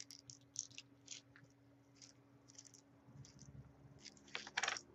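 Faint scattered clicks and rattles of small beads being poured from a small plastic container into a bottle cap, with a slightly louder cluster of clicks a little after four seconds.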